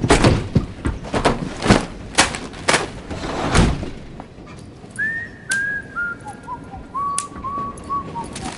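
A run of irregular thumps and knocks, then whistling: a short string of held notes, each starting with a little upward slide, stepping down in pitch.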